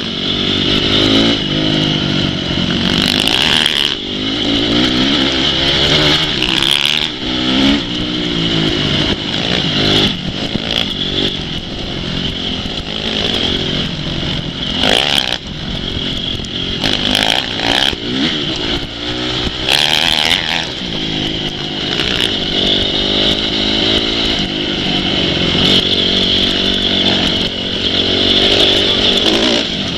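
Off-road dirt bike engines revving hard, their pitch rising and falling over and over with the throttle, more than one machine at a time.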